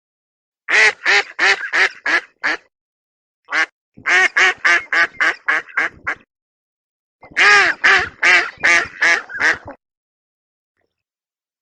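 Duck quacking in three runs of rapid, loud quacks, several a second, with short silences between the runs.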